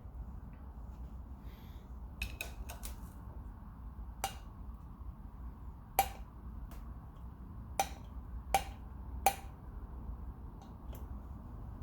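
Metal tools and engine parts clinking and knocking on a workbench during motorcycle engine disassembly: a series of sharp metallic clicks, several spaced a second or two apart, with a few in quick succession about two seconds in, over a steady low background rumble.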